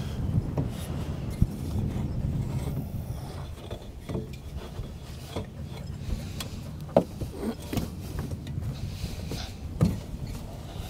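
Rubbing and scuffing with several sharp knocks and clatters, as a metal ladder is handled and shifted against a wooden boat's hull.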